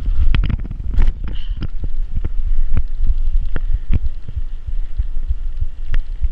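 Bicycle ridden over rough dirt ground: a constant low rumble with irregular knocks and rattles as the bike bumps along.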